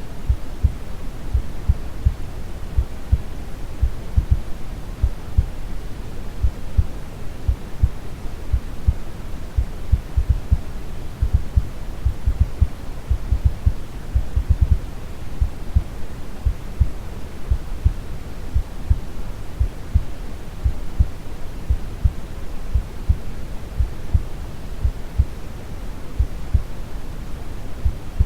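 Steady brown noise, a deep rushing hiss weighted to the low end, with a slow, regular heartbeat thumping through it.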